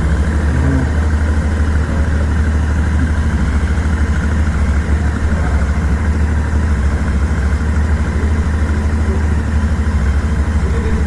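Royal Enfield 650 cc parallel-twin motorcycle engine idling steadily, just after starting.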